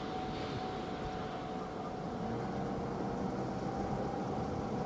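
Steady outdoor background noise: the low hum of distant road traffic, with a faint steady whine over it.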